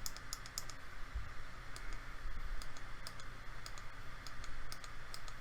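Small plastic buttons on an LED magnifier lamp's inline controller being pressed, a series of faint, irregular clicks as the colour temperature and brightness are stepped.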